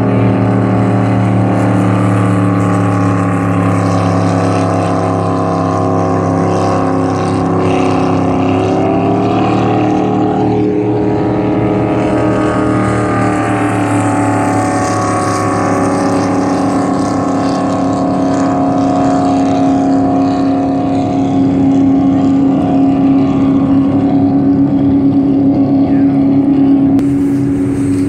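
Race jet boats running fast on the river, their engines a loud, steady drone. About a third of the way in, the pitch slides down and then climbs back as a boat goes by.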